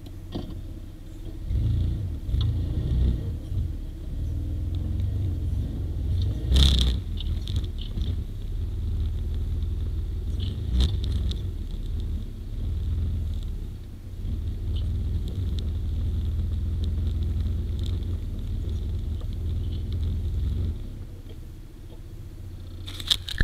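Quad (ATV) engine running under the rider as it is ridden over a rough dirt track, rising and easing off in a low rumble. A few sharp knocks come through, the loudest about seven seconds in.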